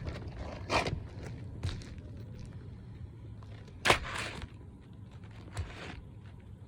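Scattered scrapes and knocks from handling asphalt roof shingles as a new shingle is fitted, five or so in all, the loudest about four seconds in, over a steady low hum.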